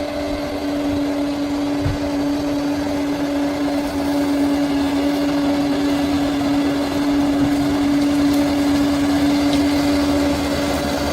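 Bulldozer's diesel engine running steadily, with a constant hum over the engine noise.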